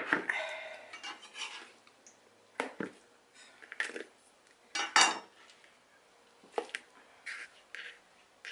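Chef's knife blade knocking and scraping against a large mixing bowl as chopped tomatoes are pushed into it, a string of sharp clinks with short scrapes between them, the loudest knock about five seconds in.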